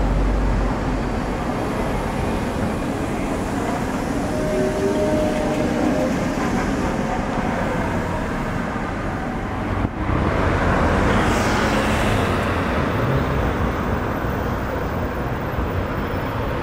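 Tatra trams at a street stop over steady city traffic noise: a T6A5 tram pulls away and a T3SUCS tram rolls in, with a few short whining tones around five seconds in. About ten seconds in the sound cuts to a louder scene as a Tatra T3 tram rolls in on its rails.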